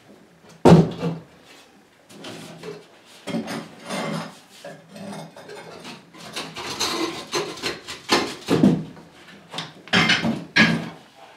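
Wooden base cabinet being rocked and pulled free of the wall and floor: irregular wooden knocks, creaks and scraping, with a sharp knock about a second in and more near the end. The cabinet is tight at the bottom because the floor tile runs up onto its toe kick and has to be broken loose.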